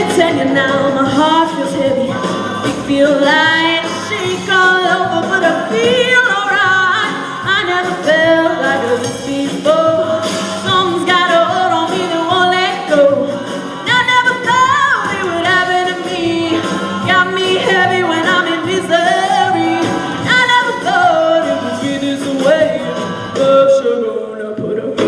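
A group of women singing a song together, several voices at once.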